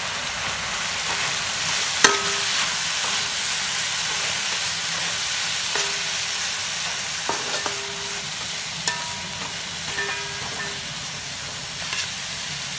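Pork and julienned ginger sizzling steadily in a hot wok while a metal spatula stirs them. The spatula knocks against the wok several times, each knock leaving a brief metallic ring, the loudest about two seconds in.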